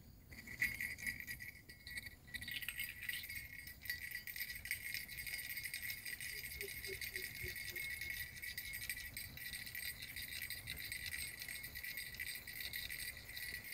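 Steady, high-pitched rattling buzz of insects that starts a moment in and holds at an even level.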